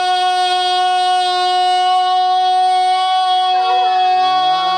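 A man singing one long, high note, held steady in pitch without a break. Near the end other voices join in underneath, sliding upward.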